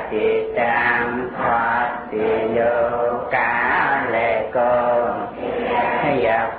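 A Buddhist monk's voice chanting in a slow, melodic recitation, in phrases of one to two seconds with short breaks between them.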